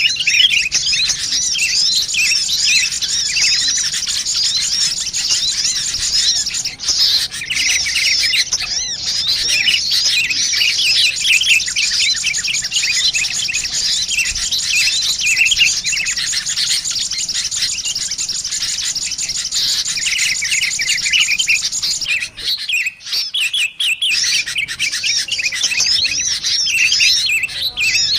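Bird-lure recording of sunbirds chattering in dense, rapid high chirps, mixed with sooty-headed bulbul calls. The twittering runs almost unbroken, with a short break a little past two-thirds of the way through.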